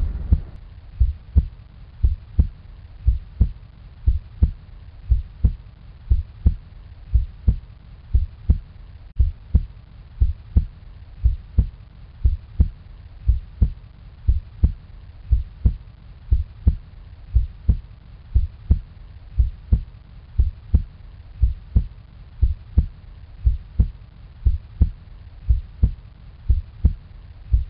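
Heartbeat sound effect: a low double thump, like a heartbeat, repeating steadily about once a second over a faint hiss.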